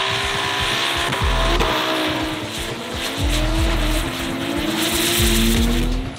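Drift cars' engines revving up and down hard as they slide, with tyre squeal and hiss, over background music with a heavy bass.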